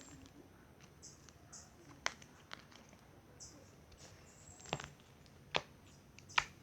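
Homemade slime made from glue and shaving gel being poked and squished by hand, giving scattered soft clicks and small pops, a few seconds apart.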